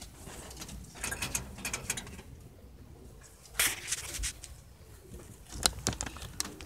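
Scattered light clicks and rustling of handling at a wooden, wire-mesh rabbit hutch, with a louder rustle about three and a half seconds in.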